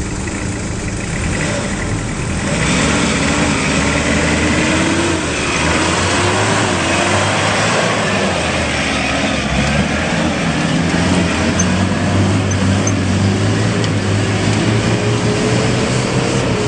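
A 4x4 pickup truck's engine revving as it drives through deep mud. The pitch rises and falls with the throttle and climbs steadily near the end, over a dense noise of tyres churning through the mud.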